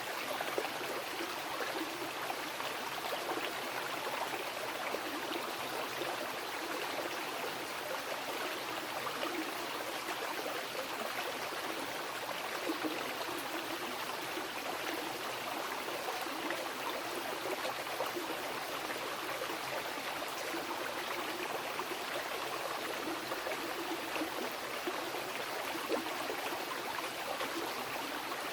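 Mountain river rushing and splashing over rocks, a steady unbroken water noise with fine bubbling detail.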